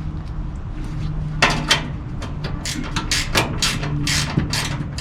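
Wrench working the sheet-metal screws out of a washing machine's back panel: a run of irregular sharp metallic clicks and knocks, bunched about a second and a half in and again in the second half, over a steady low hum.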